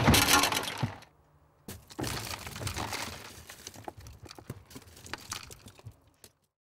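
Car side-window glass shattering under a blow: a loud crack that dies away over about a second. After a brief pause comes a long stretch of crackling and small clicks as the broken glass crumbles and is pushed through, fading out near the end.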